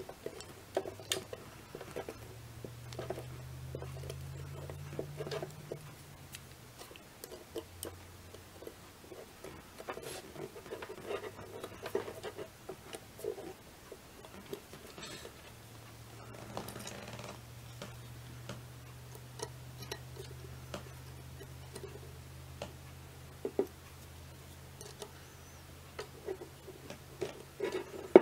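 Scattered small metallic clicks, taps and light scraping as an Allen key works the small screws that hold the rib onto a Wildey Survivor pistol barrel, with handling of the steel parts on a wooden board. A low steady hum sits underneath.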